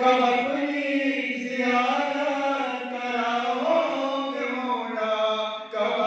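Male chanting of an Urdu devotional munajat in long held, gently wavering notes, with a short break for breath near the end.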